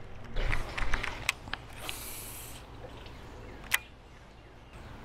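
Baitcasting reel being handled: a quick run of small clicks in the first second or so, a short hiss about two seconds in, and one more sharp click near four seconds.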